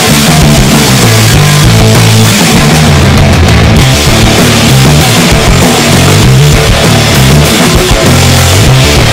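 Loud rock music, a heavy soundtrack playing steadily.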